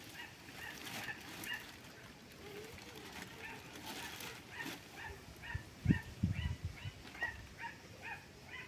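A dog whining, faint, in short repeated high yelps about two or three a second. There are scattered clicks, and a few dull knocks about six seconds in.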